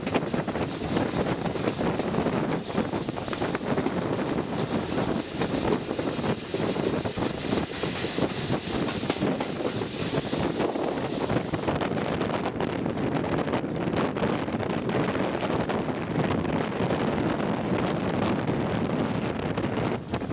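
Wind buffeting the microphone of a camera held out of a moving steam-hauled train, over the steady rumble of the train running along the track.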